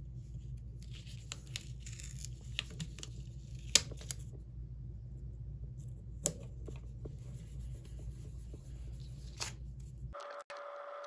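Planner stickers being peeled and pressed onto paper planner pages: rustling paper with a few sharp ticks, the sharpest about four seconds in. Near the end the sound changes abruptly to a steady faint hum.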